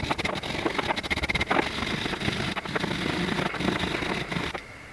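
Wire brush scrubbed quickly back and forth over the metal scroll plate of a 3-jaw lathe chuck, a dense scratchy rasping that stops shortly before the end. It is scouring out the packed debris that was binding the chuck.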